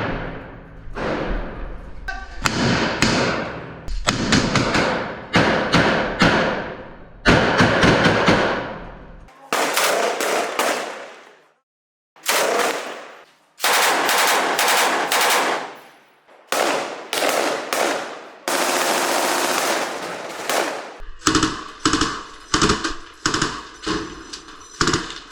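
Bursts of automatic gunfire, rapid runs of shots, each ringing with an echoing tail, broken by abrupt stops and a brief silence about halfway through.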